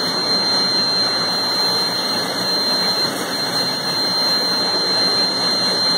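Assembly-line conveyor machinery running steadily: a constant mechanical rush with a steady high-pitched whine over it.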